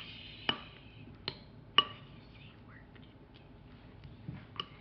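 A utensil tapping and knocking against a bowl while a baking soda and shampoo slime is mixed: a handful of sharp clicks, three louder ones in the first two seconds, then a few lighter ticks.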